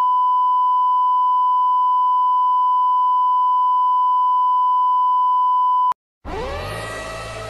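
Television test tone under colour bars: one steady, loud, high beep that cuts off abruptly about six seconds in. After a brief silence, a chord of electronic tones over a low drone slides up into pitch and holds, opening the emergency-alert broadcast.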